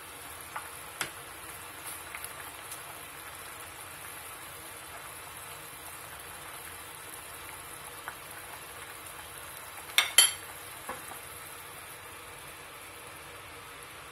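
Soup simmering in a stainless steel pot with a steady hiss while a white soup spoon stirs it, clinking against the pot a few times. The two loudest clinks come about ten seconds in.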